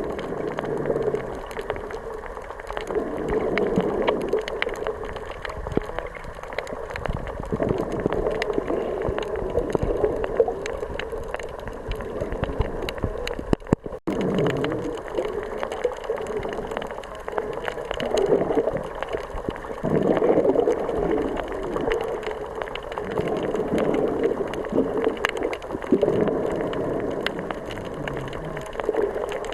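Sea water sloshing and gurgling in surges that swell and ebb every second or two, with a brief break about halfway through.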